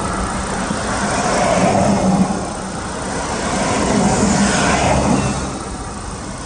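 Road traffic: the engine hum and tyre noise of passing cars, swelling and fading twice.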